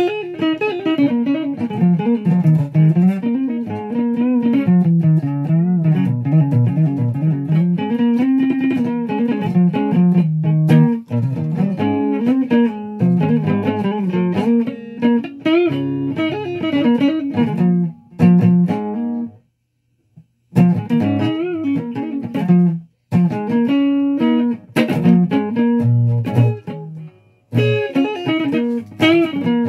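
Flying V–style electric guitar being played: a run of picked notes, mostly low and moving up and down, with a few short stops in the second half.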